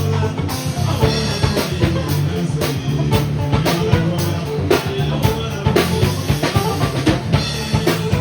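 A live band playing an upbeat number: a drum kit keeps a steady beat of kick, snare and rimshots over a bass line.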